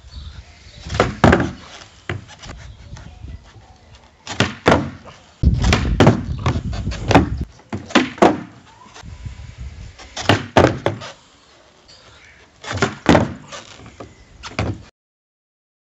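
Skateboard ollies on a wooden deck: the tail snapping down for the pop and the board landing back on its wheels, heard as pairs of sharp knocks a fraction of a second apart, five times. For about two seconds midway the wheels rumble as they roll along the deck boards.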